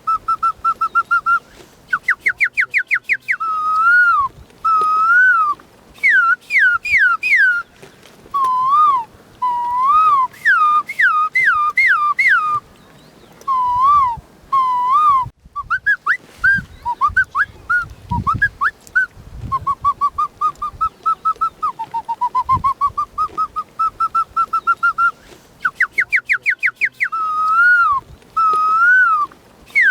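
A boy whistling by mouth in imitation of bird song: rapid pulsing trills, quick rising chirps, wavering and falling swooping notes, in phrases with short pauses between them. The sequence of phrases repeats about halfway through.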